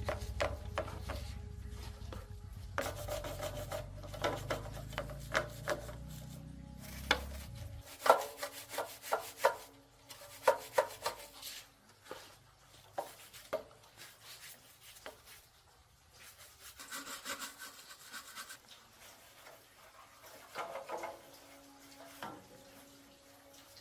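Repeated rubbing and scraping strokes of hand work, with a low steady hum under them that stops about eight seconds in.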